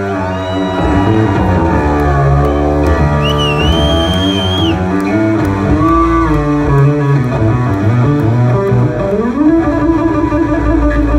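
Electric bass played solo through a stage amplifier: sustained notes that slide and bend up and down, with a high held note for about a second and a half near the middle.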